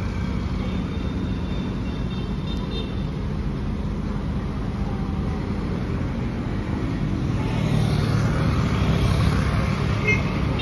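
Road traffic: a steady low engine rumble, swelling louder over the last few seconds as a motor scooter passes close by.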